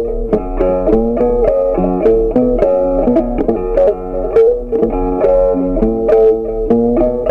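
Background music: a plucked guitar playing a quick melody of short notes, about three a second.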